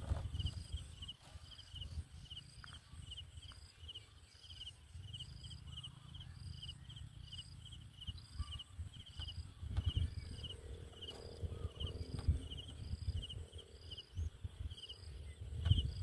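Outdoor ambience: a small animal's high chirp repeated at an even rhythm, a few times a second, over a low rumbling with bumps that is strongest at the start and near the end.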